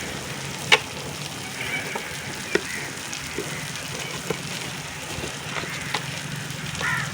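Onion and tomato masala sizzling steadily in coconut oil in a pan, with a few sharp taps of the stirring spoon against the pan, the loudest about a second in.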